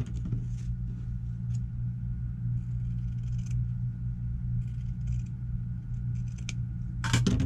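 Fabric scissors cutting through cotton bias strips in a few short snips, over a steady low hum. A brief louder sound comes near the end.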